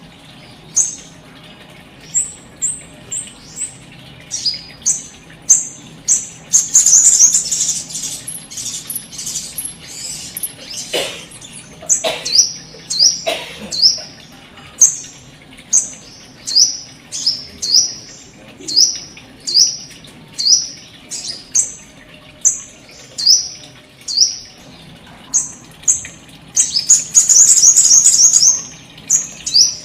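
Small aviary birds chirping: short high chirps repeated about once or twice a second, with two stretches of rapid, louder twittering, one a few seconds in and one near the end.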